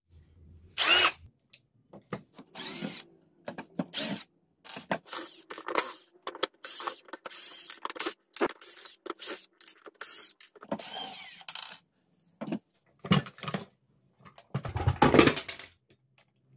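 Short bursts of a small cordless screwdriver spinning screws out of a cordless nailer's plastic housing, between clicks and clatter of screws, parts and tools being handled. A louder knock and clatter comes near the end.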